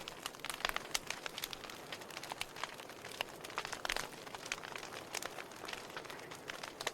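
Campfire crackling: irregular pops and snaps of burning wood over a soft hiss.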